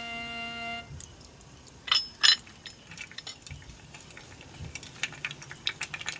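Whisky poured over ice cubes in a glass tumbler, with two sharp clinks of ice against glass about two seconds in, then a bar spoon stirring the ice in a quick run of light clinks. A held chord of background music ends within the first second.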